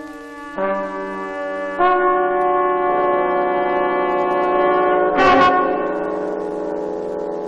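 Music: long held chords that change twice in the first two seconds, then sustain, with a short noisy swell about five seconds in.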